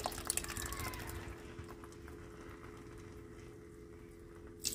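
Milk poured from a can into melted butter in a hot nonstick pan, fizzing and crackling for the first second or so before dying down to a faint steady hum. A short knock sounds near the end.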